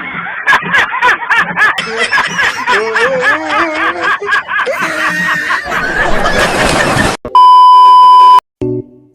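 Voices laughing and snickering for about seven seconds, then a loud, steady electronic bleep lasting about a second, followed by a few soft piano notes near the end.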